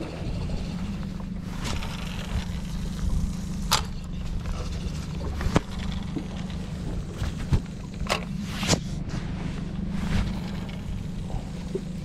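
A small boat's motor running steadily on the water, with a few short sharp knocks scattered through.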